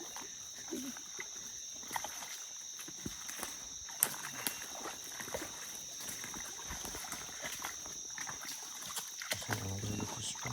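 Insects droning steadily in thick bush, a constant high buzz, with scattered sharp clicks and crackles, the clearest about four seconds in.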